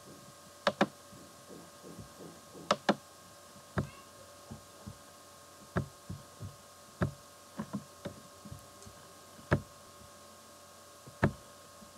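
Computer mouse clicking: single clicks and a few quick double clicks at irregular intervals, over a faint steady hum.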